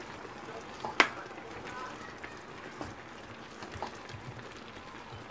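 Wooden spoon stirring thick, saucy tteokbokki in a pan on the stove, with one sharp knock of the spoon about a second in and a few faint clicks after, over a steady low simmering hiss.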